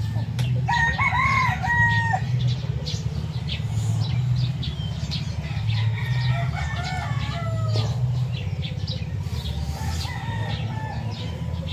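Roosters crowing at dawn: one long crow starting about half a second in, a second crow around six seconds in that falls away at the end. A steady low drone runs underneath, with small bird chirps.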